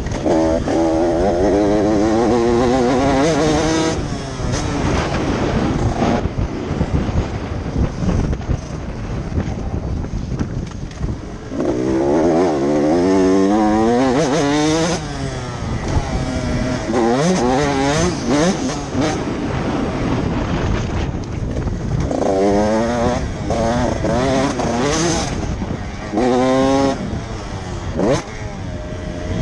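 Motocross bike's engine, heard from the rider's helmet, revving in repeated bursts. Its pitch climbs through the gears and drops back each time the throttle closes for a corner.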